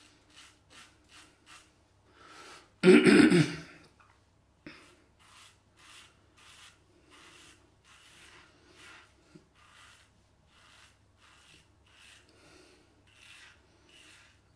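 Parker 99R double-edge safety razor cutting through lathered beard stubble in short rasping strokes, about two a second. About three seconds in, the shaver loudly clears his throat.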